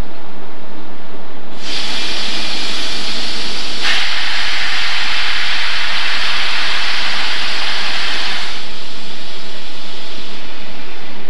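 Long hiss of compressed air venting from the air system of a standing SNCF electric locomotive. It starts suddenly about two seconds in, gets louder about four seconds in, and cuts off after about eight and a half seconds.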